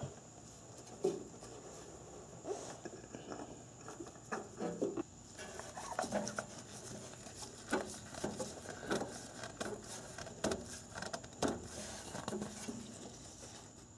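Faint, irregular clicks and rubbing as a gloved hand screws a new spin-on oil filter onto its mount and snugs it by hand.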